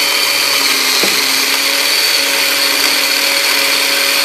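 Electric food processor running loudly at a steady speed, chopping basil pesto while olive oil is drizzled in through the feed tube.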